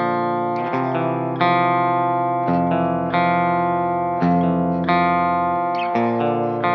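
Electric guitar played through a T-Rex Karma Boost pedal in a sound demo: chords struck one after another, a new one roughly every second, each left ringing and slowly fading, with a lightly driven tone.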